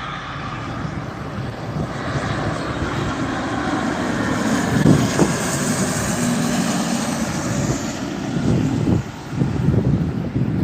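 Jet aircraft passing overhead: its engine noise builds to a peak with a high whine about halfway through, then eases off.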